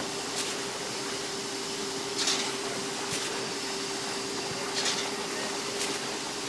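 Concrete pump running with a steady machine hum and one held tone, a short hiss about every two and a half seconds and a light click between each pair of hisses, a regular repeating cycle.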